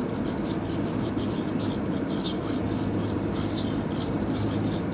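Steady engine and tyre noise of a car driving along a street, heard from inside the cabin, with a low hum underneath and faint short high chirps here and there.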